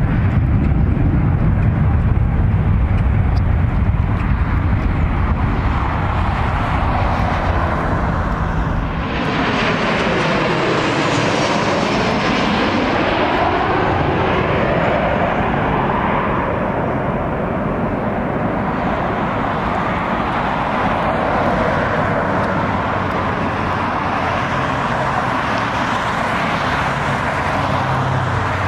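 Jet airliner engines through successive landings: a deep rumble from an airliner rolling out after touchdown, then, after a cut about nine seconds in, a Southwest Boeing 737-8 with CFM LEAP-1B engines passing low overhead on final approach, its sound sweeping down and back up in pitch as it goes over, and fading into a steady jet rush.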